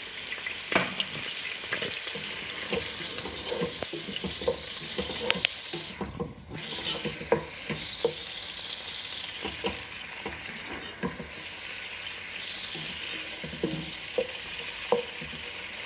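Diced chicken frying in hot oil in a pot, a steady sizzle, while a wooden spatula stirs it, with frequent short scrapes and knocks against the pot.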